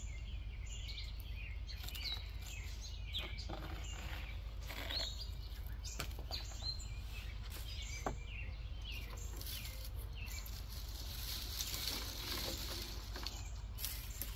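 Dried poppy stalks and seed heads rustling as they are handled, with a few sharp clicks, thickening into a denser rustle a little after the middle. Birds chirp now and then over a steady low background hum.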